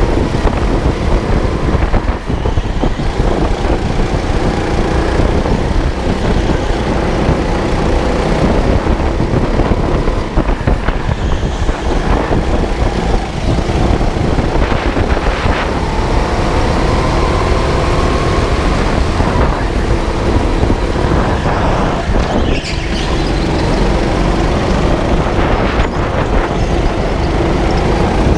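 Rental go-kart heard from on board at racing speed: its motor runs continuously, its pitch rising and falling through the corners. Short knocks and rattles from the kart come through over a low rumble.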